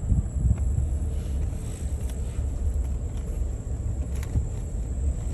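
Steady low rumble of a moving truck heard from inside the cab, with a few faint clicks or rattles.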